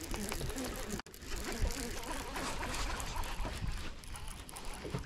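Steady rushing noise of wind and water in an open boat on a choppy lake, with a faint voice under it. The sound drops out abruptly for an instant about a second in.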